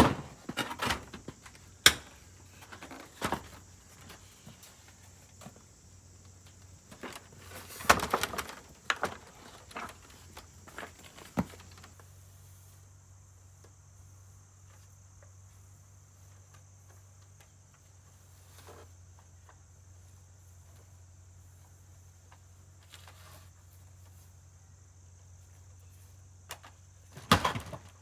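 Steady high insect chirring throughout, with scattered footsteps and knocks during the first dozen seconds and again near the end. A low steady hum sits underneath from about a third of the way in.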